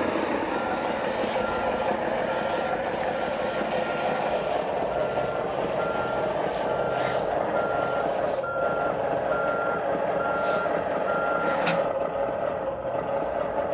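RC bulldozer's reversing alarm beeping at an even pace, a little faster than once a second, over the steady whir of its drive and tracks. The beeping stops near the end with a sharp click.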